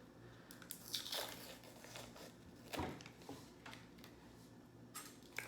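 Faint crinkling and rustling with a few sharp clicks as the sealed lid of a pint ice cream carton is pulled open.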